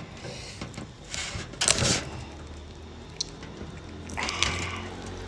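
Whole boiled chicken being pulled apart by hand: soft, wet tearing and squishing of skin and meat, with louder bursts about a second in and again around four seconds.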